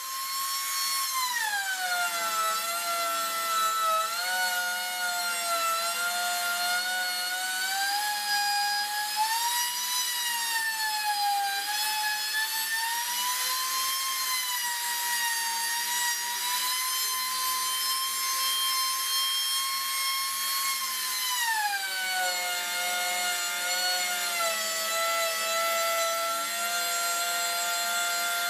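Compact trim router spinning up and cutting into plywood. Its high motor whine sags and recovers as the bit takes load, then drops to a lower, steadier pitch about three-quarters of the way through under a heavier cut.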